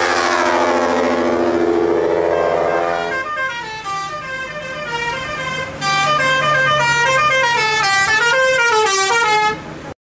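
Bus telolet horn of the Basuri type: several horn tones glide downward together, then from about three seconds in a quick run of short stepped notes plays a tune, cutting off just before the end.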